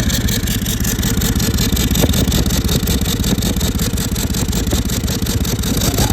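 Toyota LandCruiser 200 series 1VD twin-turbo V8 diesel engine running steadily at idle with a rapid, even pulsing; the engine has a failed turbocharger.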